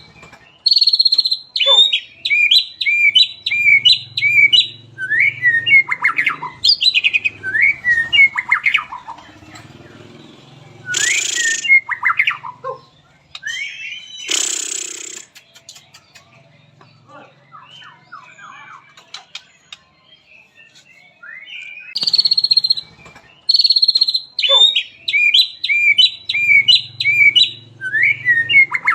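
White-rumped shama (murai batu) singing: rapid runs of sharp, repeated whistled notes, with two short harsh rasping notes about midway, then a quieter stretch of soft notes before the rapid runs return.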